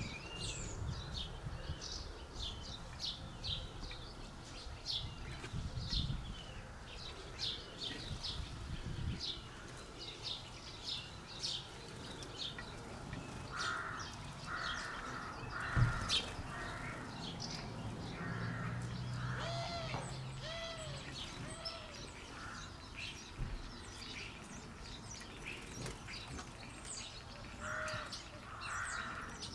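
A crow cawing in two runs of three or four harsh caws, about halfway through and again near the end, over small birds chirping throughout.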